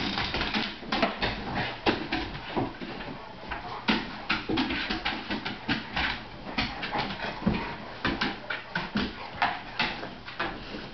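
Two large dogs play-wrestling on a wooden floor: a rapid, irregular jumble of claws clicking and paws knocking on the boards, with occasional short dog vocalisations.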